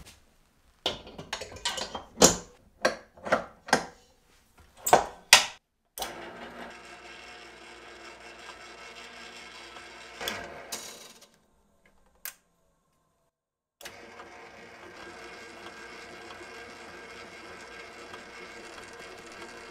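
A string of sharp knocks and rustles over the first six seconds, then a stand mixer's motor running steadily on its lowest speed as its dough hook kneads bread dough. The mixer stops about eleven seconds in and starts again a couple of seconds later.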